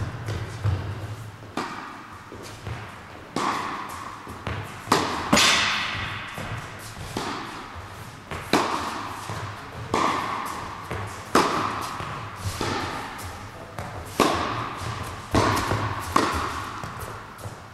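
Tennis balls struck by a racket and bouncing on the court in a steady rally: about a dozen sharp hits, roughly one a second, each followed by a long echo off the walls of an indoor hall.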